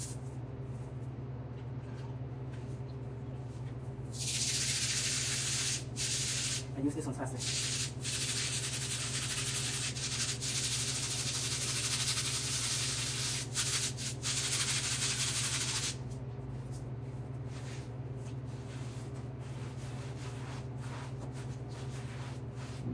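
Damp sponge scrubbing dried grout haze off floor tile: an even rubbing hiss from about four seconds in, broken by a few short pauses, stopping about sixteen seconds in. A steady low hum sits underneath.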